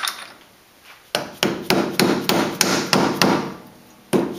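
Orange mallet tapping a metal dust cap onto a front wheel hub, seating it over the hub nut. After a single click at the start comes a quick run of about ten sharp taps, roughly four a second, then a short pause before the tapping starts again near the end.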